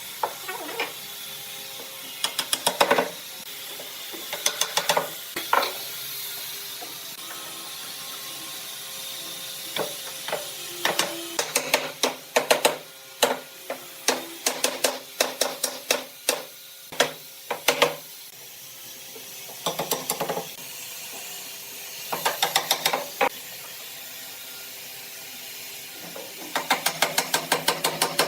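Woodworking hand-tool work: short runs of rapid, sharp tapping or knocking, several strikes a second, with pauses between the runs.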